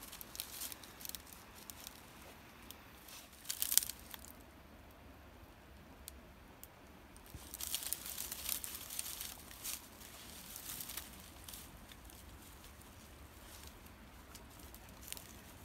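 Quiet, irregular rustling and crunching, with a sharper crackle about four seconds in and a busier spell of it from about seven to eleven seconds.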